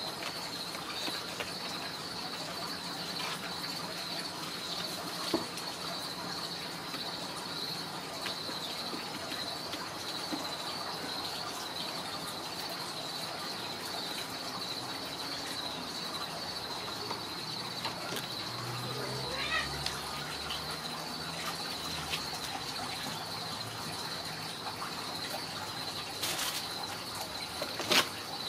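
Insects chirring steadily at a high pitch, with a few light knocks and one sharper knock near the end.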